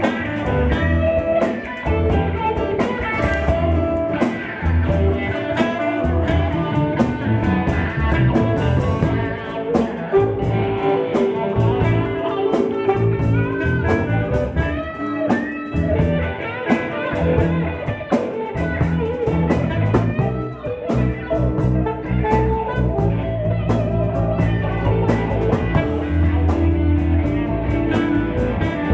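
Live blues band playing an instrumental passage: guitar leading with bent notes over bass and a steady drum beat.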